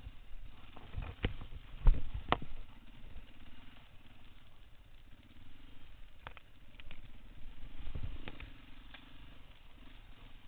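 Dirt bike engine running at low revs on a slow trail ride, with sharp knocks and clatter from the bike over rough ground, the loudest about two seconds in and another near eight seconds.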